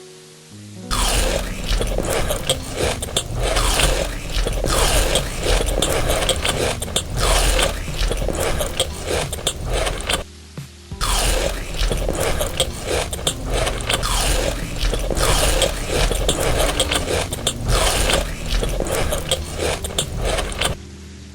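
Close-up chewing and crunching of food, in rapid continuous crackly bites with a short pause about ten seconds in, over steady background music.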